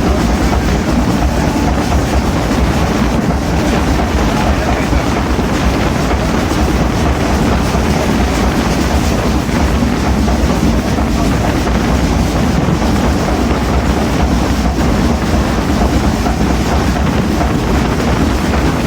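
Passenger train running at speed: a loud, steady rumble with the rattle of the coach and wheels on the track, mixed with wind noise.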